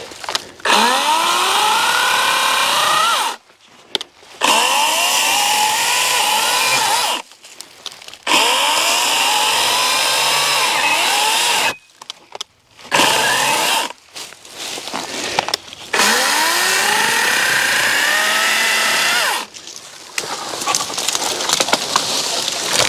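A 40-volt cordless electric chainsaw cutting through a tree trunk in repeated bursts of a few seconds, each starting with a rising whine as the motor spins up when the trigger is squeezed. Near the end the saw stops and quieter cracking and snapping follows as the tree gives way and falls.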